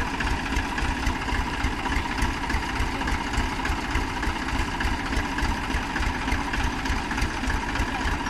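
Tractor diesel engine idling steadily, a fast even low throb with no revving.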